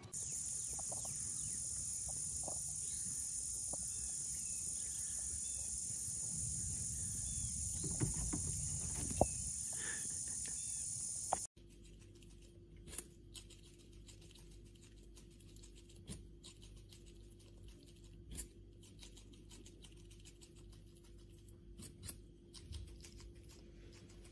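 For the first half, a steady high-pitched hiss with small chirps and a few knocks. Then a Eurasian red squirrel gnawing a carrot: scattered small crunchy clicks over a steady low hum.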